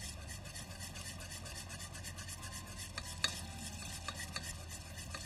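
A spoon stirring and scraping inside a stone-coated cooking pot: a steady scraping rasp, with a few light knocks of the spoon against the pot, the sharpest about three seconds in.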